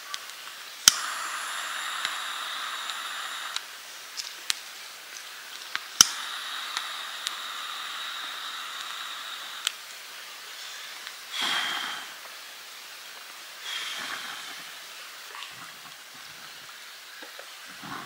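Hand-held butane gas torch lit twice with a sharp igniter click, each time hissing steadily for a few seconds as it fires into kindling in a fire stand. Two shorter hissing bursts and scattered small clicks of wood follow.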